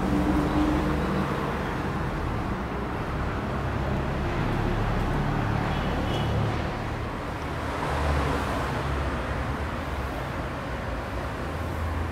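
Street traffic noise: a steady rumble of road vehicles, swelling a little about eight seconds in.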